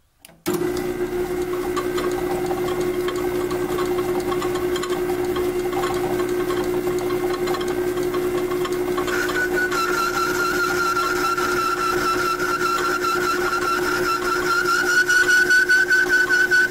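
A roughly 100-year-old metal lathe starts up and runs with a steady hum. About halfway through, a high whine joins it as the boring bar cuts inside the chuck body's bore, rising slightly in pitch and growing louder and pulsing near the end. The whine is a sign of the boring bar deflecting and bouncing in an interrupted cut.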